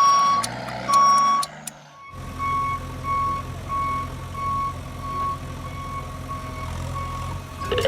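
Truck reversing alarm beeping loudly about once a second, then cut off about two seconds in. After that a truck engine runs steadily under a fainter reversing beeper that beeps about twice a second.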